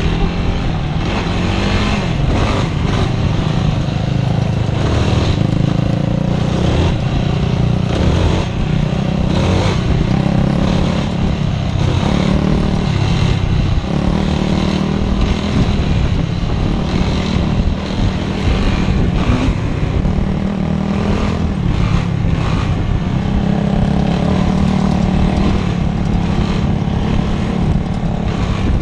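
Yamaha YFZ450R sport ATV's single-cylinder four-stroke engine running loud and close, heard from on board the machine, its pitch rising and falling every few seconds as the throttle opens and eases along the trail.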